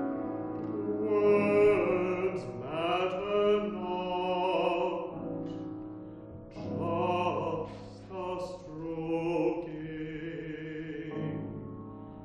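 A baritone sings a classical art song with piano accompaniment, in several phrases with short breaths between them.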